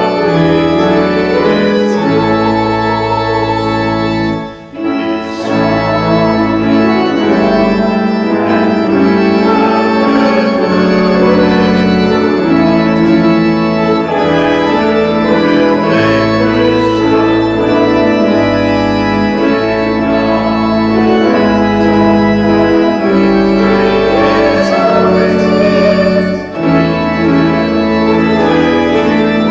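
Church organ playing slow, sustained chords, with brief pauses between phrases about four and a half seconds in and again near the end.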